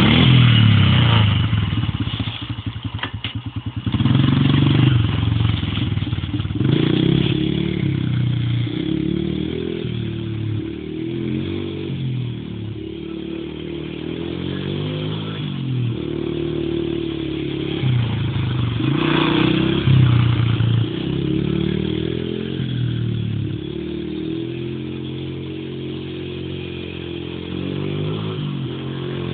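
Small dirt bike engine, just started, running with a fast uneven idle for the first few seconds. Then it revs up as the bike rides off, the pitch climbing and dropping again and again with the throttle.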